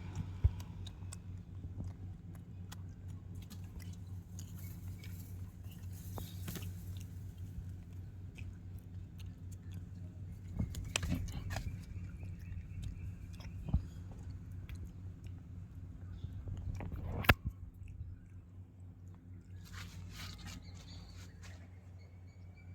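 Langur monkey chewing and biting food, with scattered small clicks over a steady low hum that fades out about three quarters of the way through. Two sharp knocks stand out, one right at the start and a louder one later.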